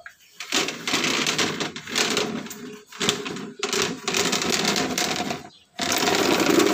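Plastic stacking chair being pushed across a tiled floor, its legs scraping in long drags with brief breaks and a clear pause about five and a half seconds in.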